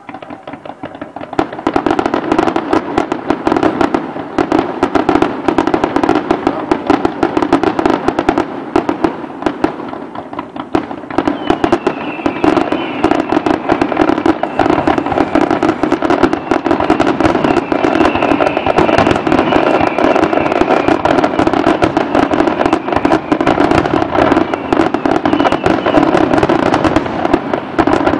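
Fireworks display: a dense, continuous barrage of bangs and crackling that starts suddenly and builds to full intensity within about two seconds.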